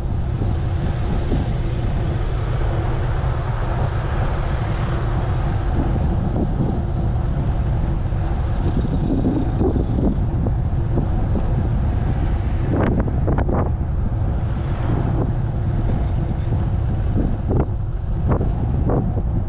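Wind buffeting the microphone of a handlebar-mounted camera on a moving road bike, a steady rumble mixed with tyre and road noise and passing cars. A few short knocks come in the second half.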